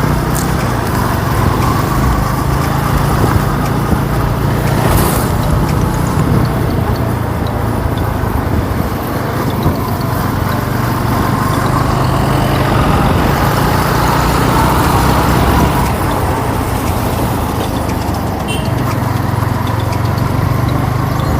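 Yamaha R15 motorcycle's single-cylinder engine running while it is ridden, under steady wind noise. Its pitch drifts slowly up and down with the throttle.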